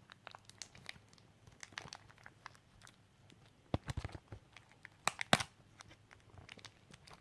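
Plastic shrink-wrap on a Blu-ray case being picked at and torn open by hand: irregular crinkling and crackling, with a few sharper snaps of the film about halfway through.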